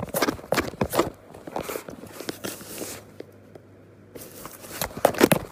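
Quick crackling and crunching of cardboard as a cat moves about inside a cardboard box, in two flurries with a short lull between them.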